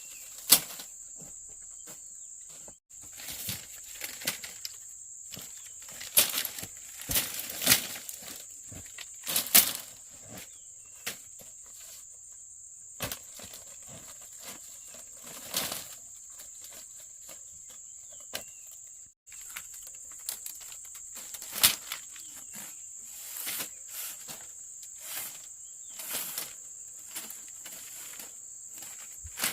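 Insects buzzing in a steady high-pitched drone, cutting out briefly twice. Over it come frequent short rustles, clicks and knocks from hands working nearby.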